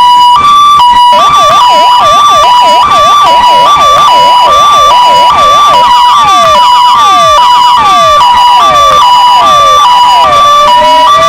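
Two electronic vehicle sirens, a Vittal and a Kingvox SPMX, sounding at once and loud: one keeps a steady two-tone hi-lo, while from about a second in the other runs a fast yelp of quick rising and falling sweeps. About halfway through the second siren switches to a slower pattern of falling sweeps, and near the end it begins a slow rising wail.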